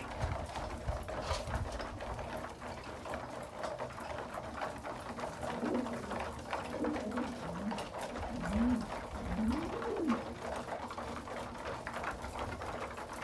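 Racing pigeons pecking grain from a wooden trough feeder, a dense patter of small beak clicks. Partway through, a pigeon coos several times, each coo rising and falling in pitch.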